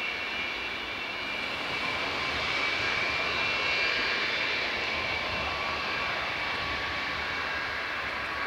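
Antonov An-124's four D-18T turbofan engines at taxi power: a steady high-pitched whine over a broad rush of engine noise, growing a little louder in the middle as the freighter passes, then easing.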